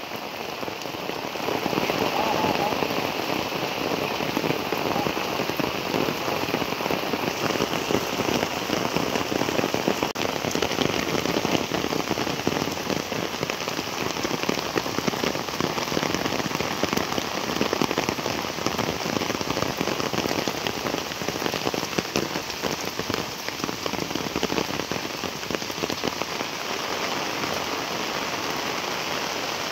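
Heavy rain falling steadily, mixed with the rush of muddy floodwater running down a roadside ditch.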